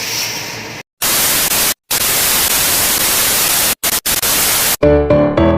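Loud TV-style static hiss used as an editing transition effect, cut off abruptly by a few brief dead-silent gaps. Near the end, keyboard or piano music begins.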